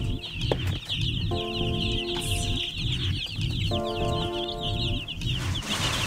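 A brood of chicks peeping constantly in quick, high, falling cheeps, over background music with a steady beat.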